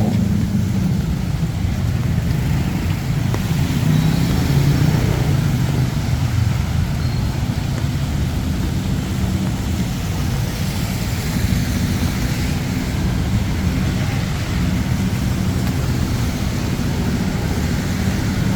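Road traffic: vehicle engines running steadily under a constant hiss.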